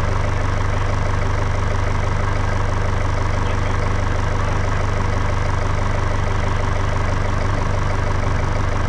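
Farm tractor engine idling steadily, heard from the operator's seat.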